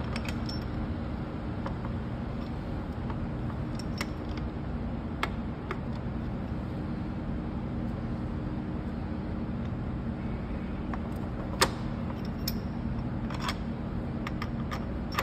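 Scattered metallic clicks and taps of a rear main seal installer tool and its Allen bolts being handled and fitted to a diesel engine's crankshaft, over a steady low background hum. The sharpest click comes about three-quarters of the way through.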